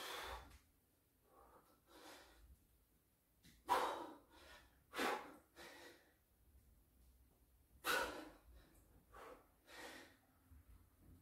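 A man breathing hard while doing push-ups: short, heavy breaths without voice, about one every second or two, the strongest near four, five and eight seconds in.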